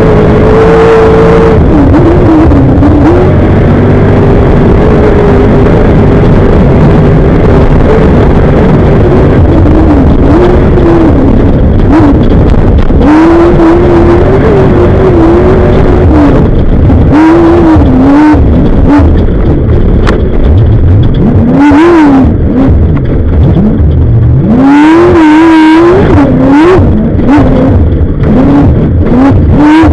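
Class 1 off-road desert race car engine, very loud, revving hard and backing off over and over, its pitch climbing and dropping many times in quick succession as the car accelerates and lifts through the course.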